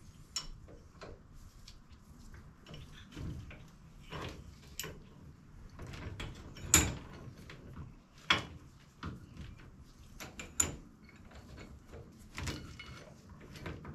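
Irregular metallic clicks and clinks of a steel roller drive chain and a hand tool being worked in a bench vise, with a few sharper knocks in the second half.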